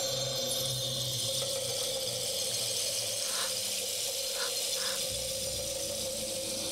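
Eerie horror-film score: a sustained drone with one held tone over a steady hiss, and a few faint short blips in the middle.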